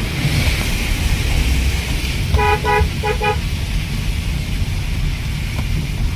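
Steady road and engine rumble heard from inside a moving car, with a car horn tooting four short times in two quick pairs about two and a half seconds in.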